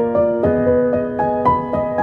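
Background music: a soft piano melody of struck notes, several each second.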